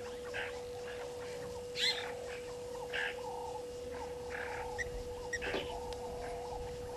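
Several birds calling in the bush: a busy wavering chatter with short, sharper calls over it, the loudest about two seconds in. A steady faint tone runs underneath.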